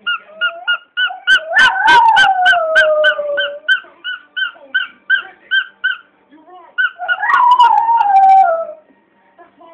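Rubber squeaky dog toy squeezed rapidly, about four squeaks a second, while a Border Terrier howls along twice, each howl long and falling in pitch. A few sharp knocks come during the first howl.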